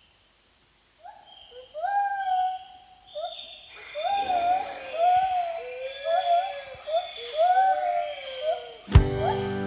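A jungle soundscape of animal calls: many short pitched hoots, each rising and then levelling off, begin sparsely and grow into an overlapping chorus. Near the end a sharp drum hit brings in the song's music.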